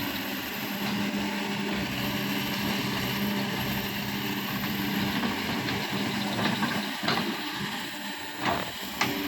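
Excavator's diesel engine running steadily, with a few knocks near the end.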